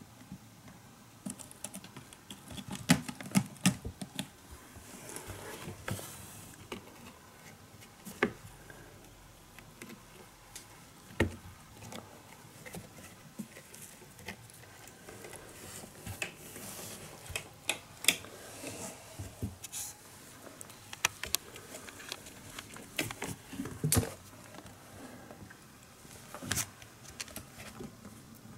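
Kittens scrambling and wrestling on a carpeted cat tower: irregular scratching, rustling of claws and paws on carpet and sisal, and small knocks.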